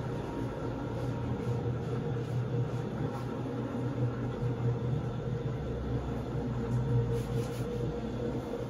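Rotary floor scrubbing machine running steadily, its motor giving a low, even hum as the rotating brush scrubs a soapy, wet rug.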